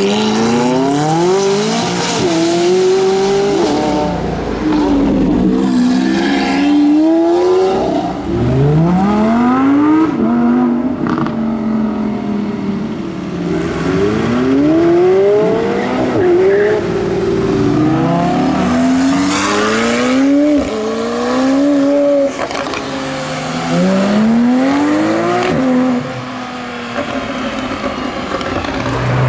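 McLaren twin-turbo V8 supercars accelerating hard past, one clip after another: the exhaust note climbs with the revs and drops back at each gear change, many times over.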